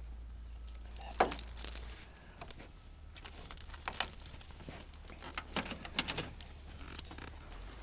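Close handling noise: irregular rustling, scraping and sharp clicks, with two clusters of louder clicks about a second in and about six seconds in.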